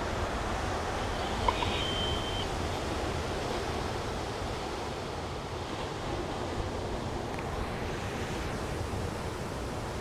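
Steady rushing hiss, like wind or microphone noise, with a faint click and then a short high beep about two seconds in.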